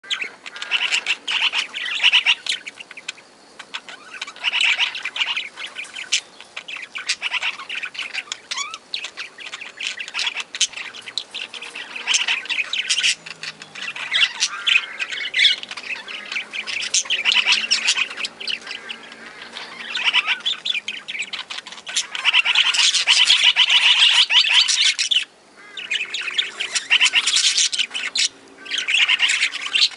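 A flock of small aviary parrots chattering and squawking continuously, many short overlapping calls at once, with two brief breaks near the end.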